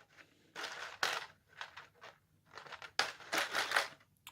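Plastic packaging crinkling and crackling in three or four short bursts as two small accessory skis are worked out of a plastic tray.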